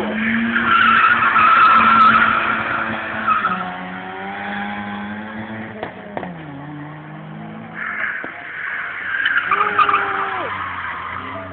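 Car drifting: tyres squealing for about three seconds over a steadily held engine note, then the engine revving up and down with a drop in pitch about six seconds in, and a second run of tyre squeal from about eight seconds in, ending as the engine note falls away.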